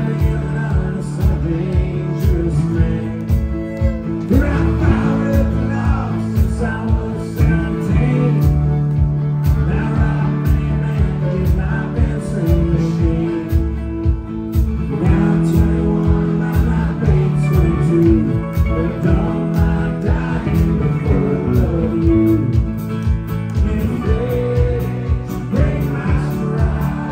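Live country-rock band playing an instrumental break: bowed fiddle over strummed acoustic guitar, bass and drums keeping a steady beat.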